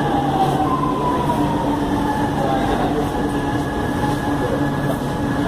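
Electric metro train running alongside an underground platform, heard through the platform screen doors: a steady rumble and hum with a motor whine that falls in pitch as the train slows.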